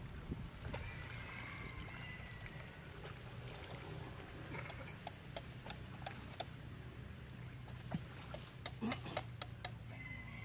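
Outdoor ambience with a steady low rumble and a thin, steady high whine. Faint high chirps come in early, and scattered light clicks and rustles follow through the second half.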